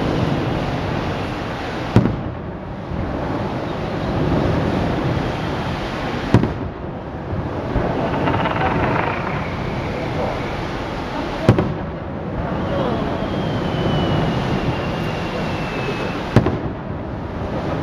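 Aerial firework shells bursting: four sharp bangs, roughly every four to five seconds, each followed by echoing rumble and crackle. Between the bangs come two long, slowly falling whistles from shells on their way up.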